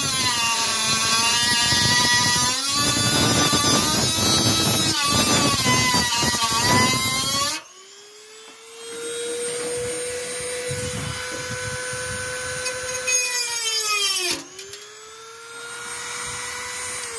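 Corded rotary tool cutting through a plastic motorbike body panel, a loud whine wavering in pitch as the bit bites. After about seven and a half seconds it runs more quietly with a steadier whine. Near the end its pitch dips briefly and comes back up.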